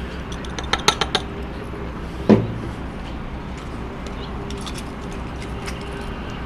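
Glass clinking as a wine glass knocks against the mouth of a glass bottle while dry river sediment is poured into the water, a quick cluster of light clicks about a second in. A single louder knock comes a little after two seconds, followed by a few faint clicks as the cap is fitted.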